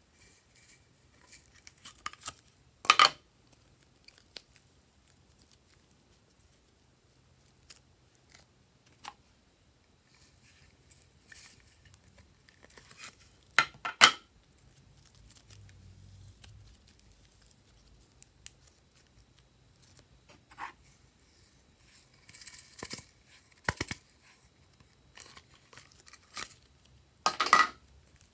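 Slime being stretched and pulled apart by hand, giving irregular crackling and sharp popping snaps as air pockets burst and the slime tears. A few louder snaps come about 3 seconds in, around the middle and near the end.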